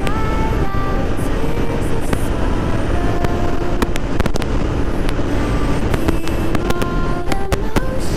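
City road traffic heard while riding through it: a steady road and wind rumble, with many short horn beeps from surrounding vehicles at different pitches and scattered sharp clicks.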